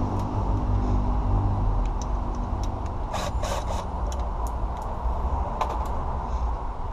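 Acura RSX window regulator being worked into the door: scattered sharp clicks and rattles, with a quick cluster about three seconds in, over a steady low hum.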